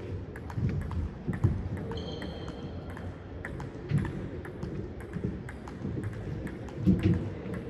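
Table tennis balls clicking off bats and tables in a playing hall: many quick sharp clicks over a low hall rumble, with a brief thin high tone about two seconds in.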